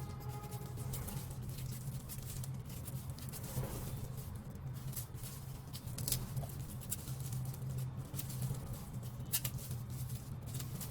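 Knife scraping and clicking intermittently as taro is peeled by hand, over a steady low hum.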